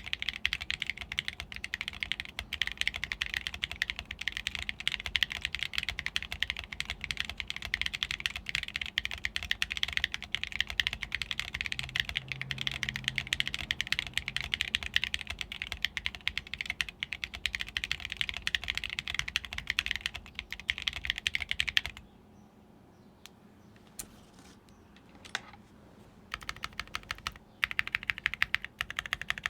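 Fast typing on a mechanical keyboard with lubed and filmed Tecsee Ruby v2 switches, aluminum keycaps and an aluminum plate: a dense, steady clatter of keystrokes that stops about 22 seconds in, leaving only a few single key clicks, then picks up again near the end.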